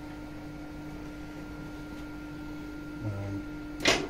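Steady machine hum with a constant tone. About three seconds in there is a brief low sound, and near the end a single sharp knock, the loudest sound here.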